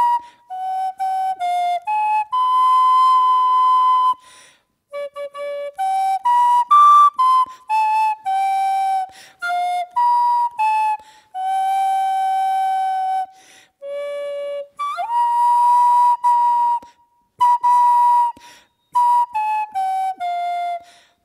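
A small wooden flute blown through the nose, playing a slow, simple melody of separate held notes with a breathy air sound and short breaks between phrases. A few notes are held for about two seconds, and one about two-thirds of the way through slides up into its pitch.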